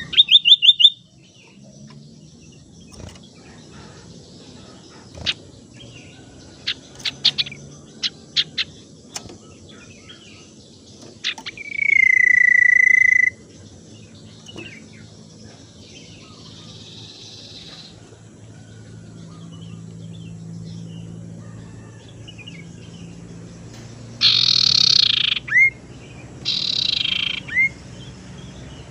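Common iora (sirtu, cipoh) calling as a lure recording. A rapid trill comes at the start, then scattered sharp chip notes, one long steady whistle about twelve seconds in, and two harsh rasping calls near the end, each closing with a short downward flick.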